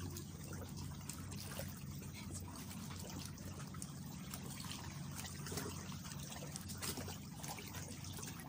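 Shallow seawater lapping and trickling over stones and rock, a steady wash with small splashes, over a low steady hum.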